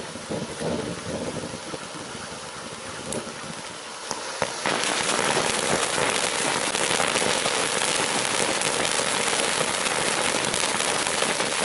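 Iron Man Fireworks '5 Minute Safari' ground fountain hissing as it sprays sparks. About four and a half seconds in it jumps louder into a dense, fine crackling.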